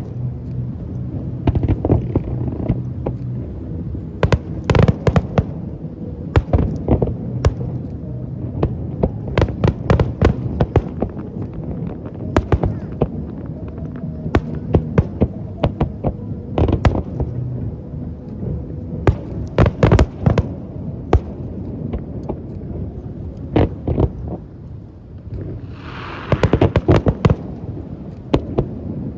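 Aerial fireworks display: irregular sharp bangs of shells bursting, sometimes several in quick succession, over a continuous low rumble. Near the end comes a burst of hissing crackle.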